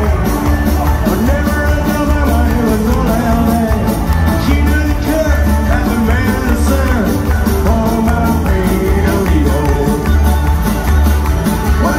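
Live rock band playing a song with a singer, over a steady, pulsing bass and drum beat.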